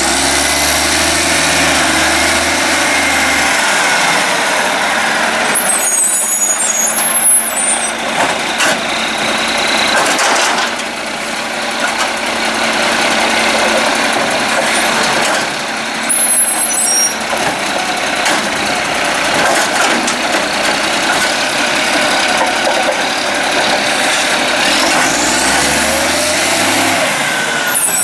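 2006 International Acco garbage truck's Cummins ISC diesel engine running loud and steady, revving up and down with rising pitch near the start and again near the end. Short sharp air-brake hisses cut in three times.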